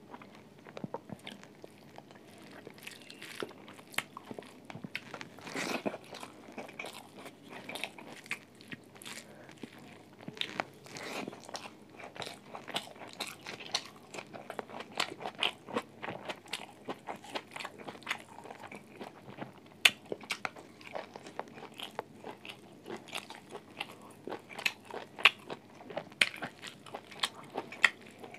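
A person eating close to a mobile phone microphone: biting and chewing, with many short sharp clicks coming several a second.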